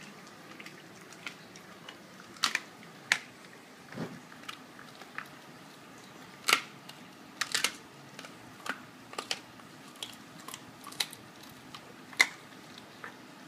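German shepherd chewing raw chicken pieces with the bones in, an irregular run of sharp crunches and clicks as its teeth work through bone.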